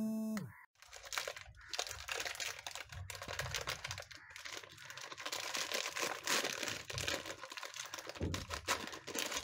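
Plastic biscuit-packet wrapper and its inner plastic tray crinkling and crackling irregularly as hands pull the tray of biscuits out of the opened packet.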